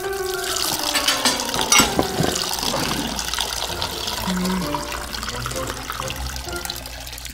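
A steady stream of orange juice pouring and splashing into a glass jar.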